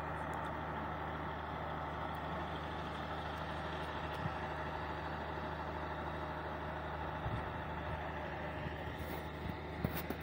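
An engine running steadily at idle, a constant low hum that does not change, with a few faint ticks near the end.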